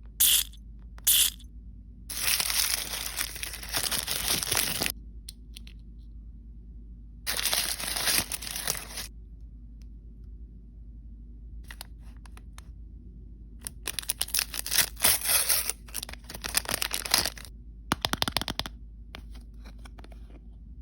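L.O.L. Surprise blind-bag packaging being torn open and crinkled by hand: two short rips, then several longer spells of tearing and crinkling with pauses between.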